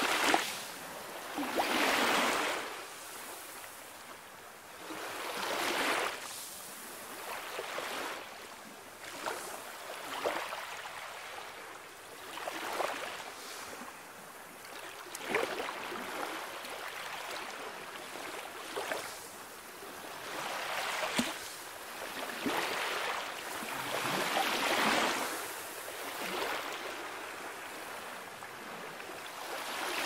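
Calm sea waves washing onto the shore, a surge of surf swelling and falling away every two to three seconds.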